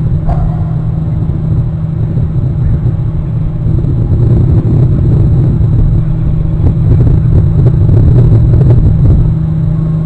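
Loud, steady low rumble whose level flutters unevenly throughout.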